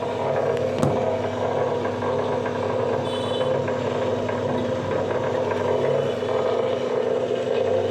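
Waste-wire stripping machine running steadily with a continuous mechanical hum as wire is fed through it, and one sharp click about a second in.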